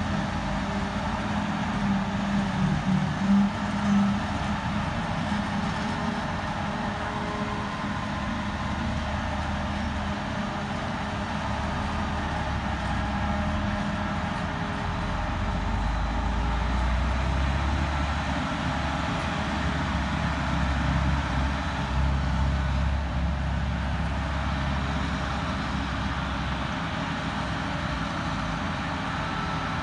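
Claas Jaguar self-propelled forage harvester running steadily under load as it picks up and chops grass, alongside the tractor pulling the silage trailer. A deeper low rumble swells about halfway through and eases near the end.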